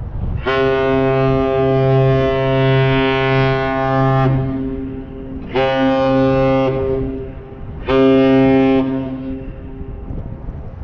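Great Lakes freighter's deep ship's whistle sounding the captain's salute: one long steady blast of about four seconds, then two short blasts, the last one the loudest.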